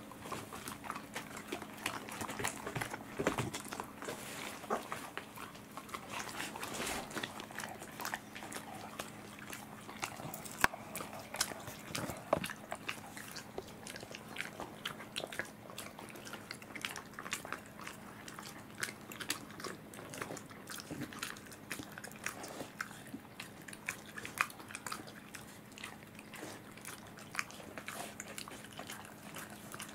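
Welsh corgis chewing treats, a dense irregular run of sharp clicks from their mouths, over a faint steady hum.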